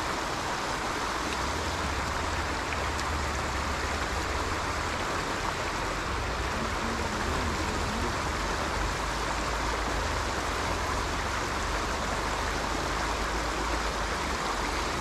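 Water rushing steadily over a low dam of logs and brush at the outflow of a swamp pond, an even, unbroken sound.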